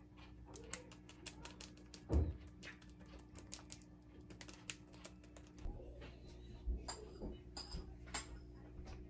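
Kitchen utensils and dishes being handled: many light, irregular clicks and taps, a louder knock about two seconds in, and a few short ringing clinks near the end, over a steady low hum.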